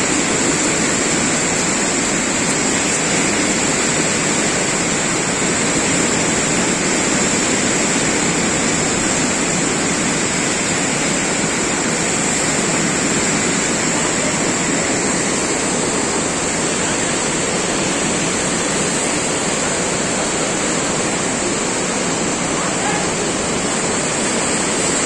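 Muddy floodwater rushing fast and turbulent past a concrete railing, a loud steady rushing with a thin high hiss above it.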